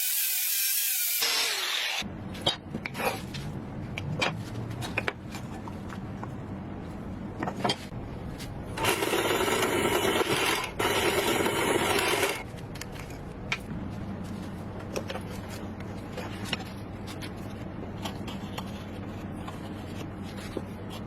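Workshop tool sounds. A hiss for about the first two seconds, then scattered taps and scrapes over a low hum, with a power tool running for about three seconds near the middle, briefly interrupted once.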